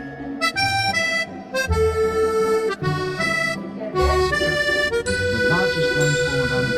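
Background music: a melody of changing notes, then one long held note from about five seconds in, over a low bass line.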